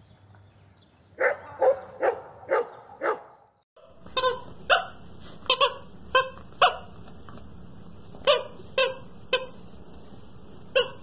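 A dog barking in short single barks, five in quick succession. After a brief break, short sharp barks come about ten times in uneven groups.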